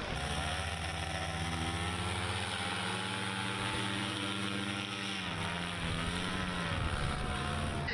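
Powered paraglider's engine and caged propeller running in flight with a steady note that dips and wavers about five seconds in, then settles again.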